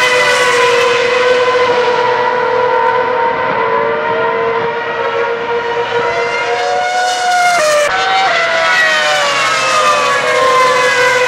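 Formula One cars' 2.4-litre V8 engines running at high revs as they pass on track, several heard at once, their pitch falling as they go by. The sound changes abruptly about eight seconds in.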